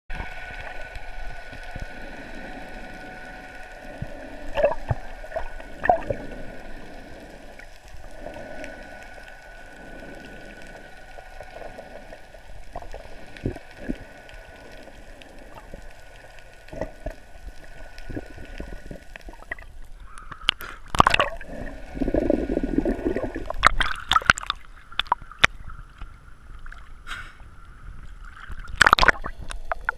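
Water heard through an action camera's underwater housing: a muffled gurgling and sloshing with scattered small knocks. From about twenty seconds in, louder, irregular splashing as the camera reaches the choppy surface.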